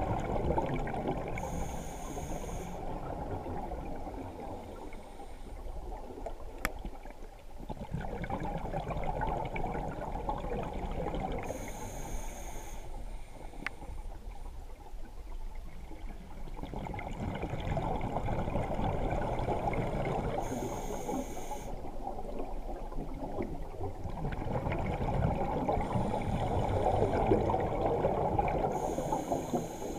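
Scuba diver's breathing heard underwater: each exhale is a few seconds of rumbling bubbles, followed by a short hissing inhale through the regulator. The cycle repeats about every nine seconds, four times here.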